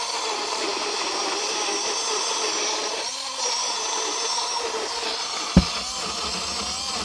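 Small motor of a cheap pink rechargeable USB blender running steadily, its blades churning fruit, water and syrup into a purée. A single thump about five and a half seconds in.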